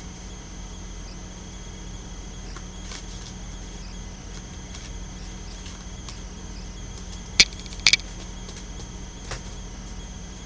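Oracle cards being handled out of frame: a few faint taps, then two sharp clicks about half a second apart, about seven and a half seconds in, over a steady low electrical hum.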